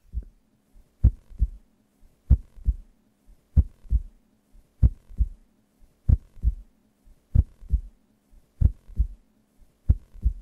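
Slow heartbeat sound effect: double low thumps repeating about every second and a quarter over a faint steady hum.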